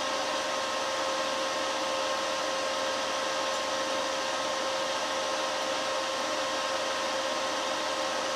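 Homemade induction heater converted from a welding inverter, running steadily under load while heating an iron crucible: an even machine whir with a constant hum.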